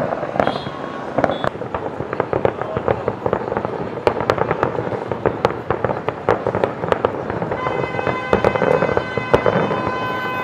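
Fireworks display bursting overhead: a dense run of sharp bangs and crackles. About three-quarters of the way in, a steady pitched tone joins and holds on under the bangs.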